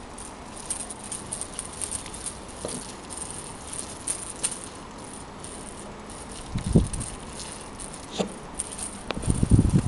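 A puppy's small toy rattle rattling lightly and clicking on and off as the puppy shakes and chews it in the grass, with two louder low thumps in the second half.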